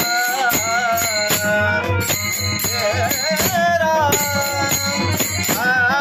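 A man singing a Marathi devotional bhajan melody over jingling percussion that keeps a steady beat of about two strokes a second.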